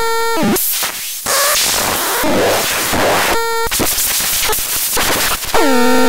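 Homemade Vapetron SL20 noise synth making electronic sounds: a steady pitched tone breaks off into harsh, shifting noise with sweeps, the tone comes back briefly about three and a half seconds in, and near the end a new tone glides down and settles at a lower pitch.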